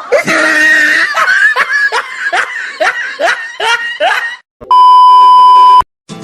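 Loud laughter, a quick run of repeated 'ha' pulses about two or three a second, dying away after about four seconds. It is followed by a steady one-second beep tone that cuts off sharply, like a censor bleep.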